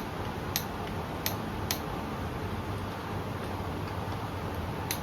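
Click-type torque wrench working a connecting-rod cap nut on a Chevy V8 being rebuilt: a few sharp metallic clicks about a second in, then one more near the end, over a steady background hiss.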